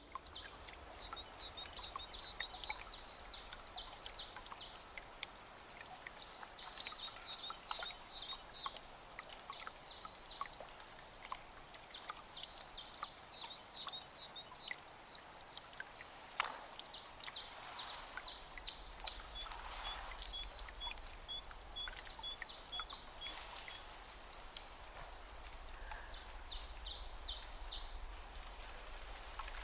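Songbirds singing: phrases of quick, high chirps that sweep downward, repeated every few seconds. A faint second call of evenly spaced notes comes in about two-thirds of the way through, over a soft outdoor hiss.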